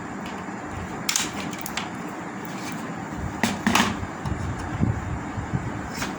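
A few light clicks and taps of tools and the TV's circuit board being handled during capacitor removal, over a steady background hum.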